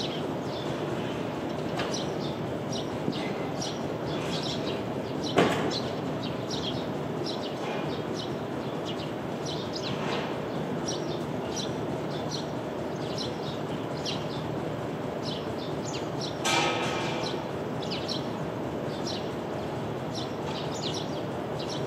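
Eurasian tree sparrows chirping in short, scattered calls over a steady hum of city traffic noise. A sharp knock comes about five seconds in, and a louder sound about three-quarters of the way through.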